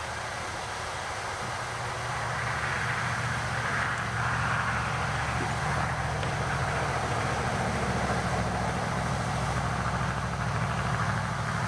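Electric blowers on a wood-gas truck's gasifier running steadily, a whooshing rush of air over a low motor hum, drawing air through the gasifier during start-up; the sound grows louder a couple of seconds in and then holds.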